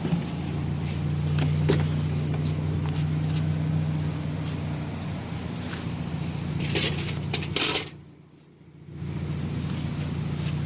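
2004 Scion xB's 1.5-litre four-cylinder idling steadily through an aftermarket header and muffler, a low steady hum, with a few clicks about seven seconds in and a brief drop-out about eight seconds in.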